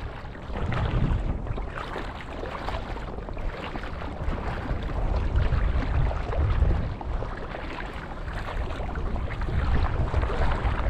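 Gusty wind buffeting the microphone: an uneven low rumble that swells and fades over a steady hiss.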